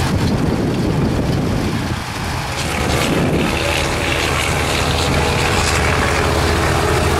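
Vintage tractor engines running steadily, a low continuous hum.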